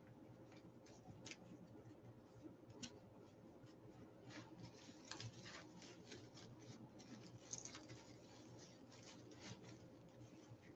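Faint rustling and crinkling of ribbons and mesh being handled and tied onto a wreath frame: a steady scatter of soft small clicks and rustles.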